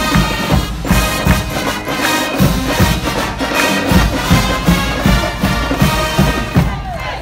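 Marching band playing: brass, with sousaphones among them, carrying a tune over a steady drum beat.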